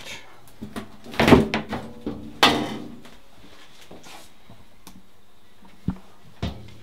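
Knocks and clatter of a washer-dryer's casing and panels being handled to remove the back: a cluster of knocks about a second in, a sharp knock shortly after, then two short clicks near the end.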